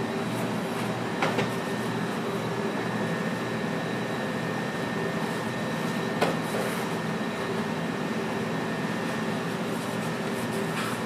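A steady machine hum with a few light clicks spread through it.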